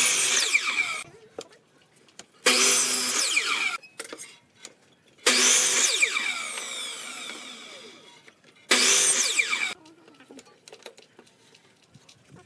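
Power tool run in four short bursts, each starting suddenly, its pitch falling as it winds down after each one.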